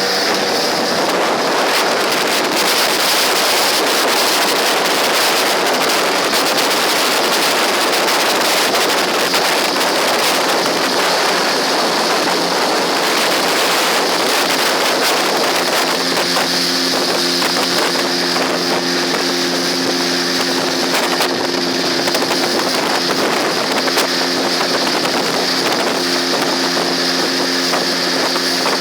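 Parsun T15 two-stroke outboard motor running steadily with the boat under way, with wind rushing over the microphone. Past the halfway point the motor's steady drone stands out more clearly above the wind noise.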